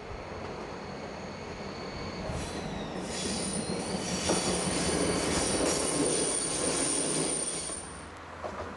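A train rolling past on the rails with a loud, steady, high-pitched wheel squeal over the rumble of its running gear. It swells from about three seconds in and cuts off suddenly near the end.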